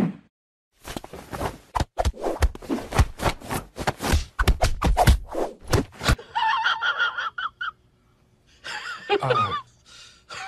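A hand patting a chubby grey cat's belly in a quick run of soft slaps for several seconds. Then two short high calls, the second sliding down steeply in pitch.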